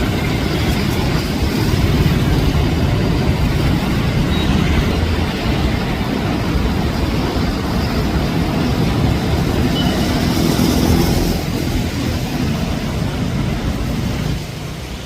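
Fast-flowing floodwater rushing, a loud, steady noise heaviest in the low end, easing slightly near the end.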